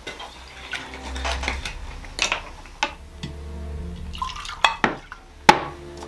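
Liquor poured from a bottle into glass tumblers, with a series of sharp glass clinks as the bottle and glasses knock against each other and the table. The loudest clink comes about a second before the end.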